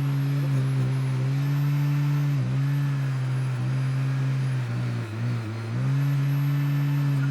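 Small electric motor running steadily with a high whine above its hum; its pitch sags briefly twice, as if loaded, then recovers.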